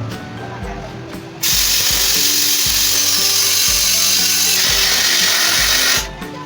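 Background music with a steady beat, overlaid by a loud, steady hiss from a tyre-shop tool that starts abruptly about a second and a half in and cuts off near the end.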